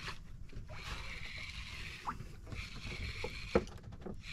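Water lapping and sloshing against a small outrigger fishing boat's hull, with a faint steady high-pitched tone throughout. One sharp knock comes about three and a half seconds in.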